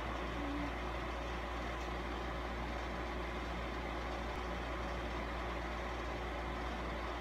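Steady low hum under an even hiss of background noise, unchanging throughout.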